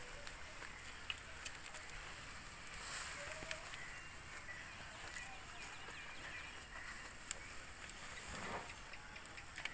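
Zebu cattle and a calf pulling at and chewing a pile of cut CO(FS) 29 fodder sorghum: scattered crackles and rustles of the stalks over a steady outdoor hiss.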